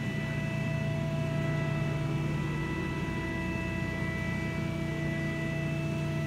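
Steady hum of a Cincinnati 175-ton CB II press brake's hydraulic system running, with a few thin high tones held steady over it.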